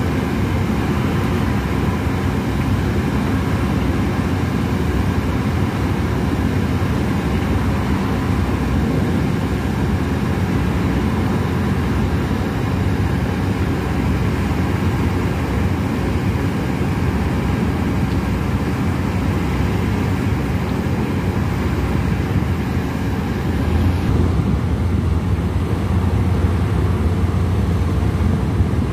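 A boat's engine running steadily, heard from on board as a loud, constant low drone with a faint steady hum over it. About five seconds before the end, the low rumble grows stronger.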